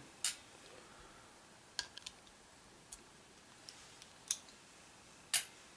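About seven light, sharp clicks and taps, spread out and irregular, the loudest near the end: a flathead screwdriver and small metal parts being handled while the grip screws are taken out of a 1911 pistol frame.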